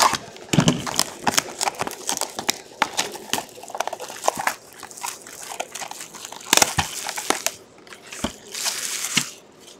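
Shrink-wrap on a trading-card box being slit with a box cutter and peeled off: irregular crinkling and crackling of the plastic film, with louder rustles about two-thirds of the way in and again near the end.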